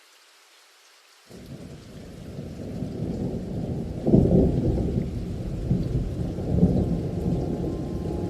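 Rain with a low rumble of thunder that cuts in about a second in, builds, peaks around four seconds in and keeps rolling.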